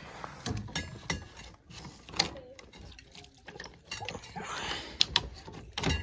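Irregular clicks and knocks of a hand handling a white PVC condensate drain line and its fittings at an air handler, with some water trickling. The drain line is clogged and the pan backed up.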